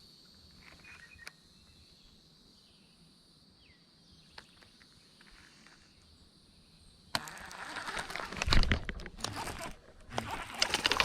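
A stretch of quiet with a faint steady high hiss and a few soft ticks, then about seven seconds in, sudden loud clattering, knocking and rubbing as gear is handled in a fishing boat.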